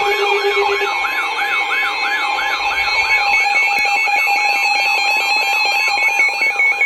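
Emergency alert tones: a steady electronic tone held under a rising-and-falling siren-like sweep that repeats about two and a half times a second, with the sound pulsing near the end.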